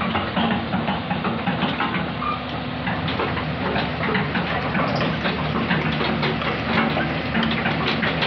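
Heavy diesel engine running steadily, with many short sharp clicks and knocks over it.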